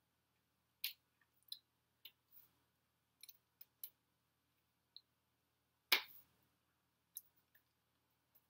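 Scattered soft clicks and taps of hands meeting and brushing during sign language, with one sharper slap about six seconds in.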